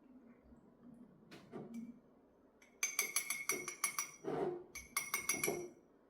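Small metal pieces clinking together about a dozen times in quick succession during jewelry bench work, each tap leaving a short bright ring. A softer rub or knock comes a little before.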